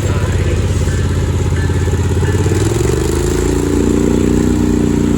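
ATV engine running on the trail. It speeds up about three seconds in, its pitch rising, and then holds at the higher speed.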